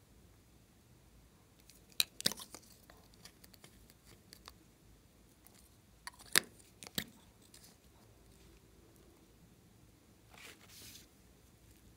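Sharp plastic clicks and taps from handling two plastic marker pens: a pair about two seconds in and a few more about six to seven seconds in. Near the end, a brief crinkle of a plastic clay packet.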